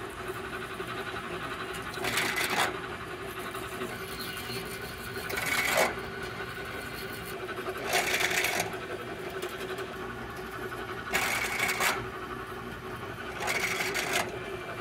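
Drill press motor running steadily while a 1/4-inch bit cuts into an aluminum wheel through a steel drill guide. There are five short spells of louder cutting noise, about three seconds apart.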